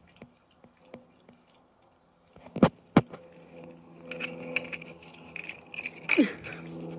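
A dog licking and chewing frosted cake, with faint smacking clicks, interrupted by two sharp knocks about two and a half to three seconds in. A faint steady hum comes in about four seconds in, and a short falling squeak sounds near the end.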